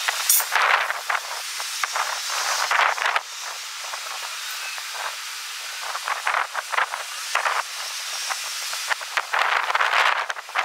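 Strong wind rushing and gusting in irregular surges, with a steadier, softer stretch in the middle.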